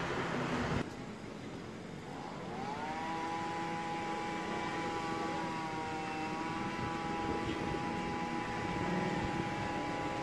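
Distant racing engines on the track, rising in pitch about two and a half seconds in and then held at high revs as a steady, slightly wavering whine. A louder rushing noise cuts off suddenly about a second in.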